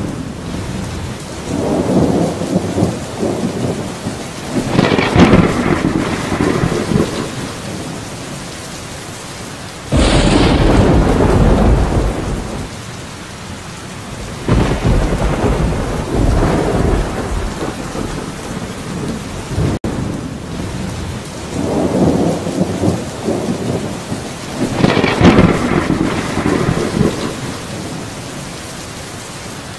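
Steady rain with rolling thunder: low rumbles swell and fade several times, and a close thunderclap breaks in suddenly about ten seconds in, with another starting right at the end.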